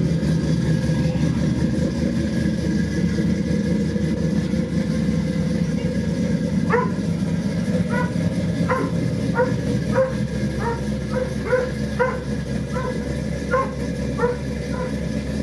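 A steady low engine rumble, with a dog barking repeatedly from about seven seconds in, roughly one to two barks a second.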